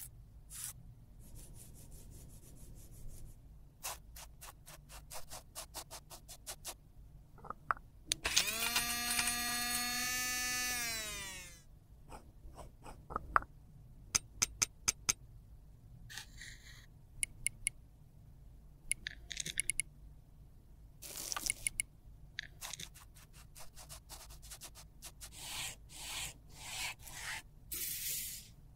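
Close-up handling sounds of makeup being repaired: a wrapper torn at the start, scattered clicks and scrapes, and a small electric grinder whirring for about three seconds and then spinning down with a falling whine. Sharp taps follow soon after, as crushed lipstick is knocked out of the grinder.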